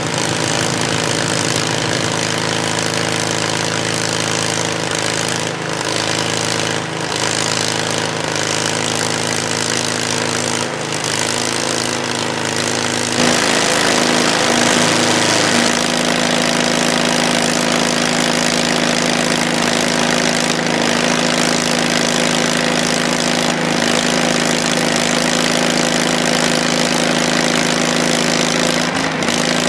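Portable bandsaw sawmill running, its gasoline engine holding a steady note over the hiss of the band blade; the engine's note shifts about thirteen seconds in. The owner says the engine is running like crap and the mill needs maintenance.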